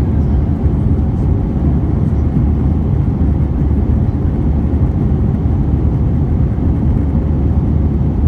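Airbus A320 cabin noise while climbing after takeoff: a steady, loud, low rumble of the engines and rushing air heard from inside the cabin, with a faint steady hum above it.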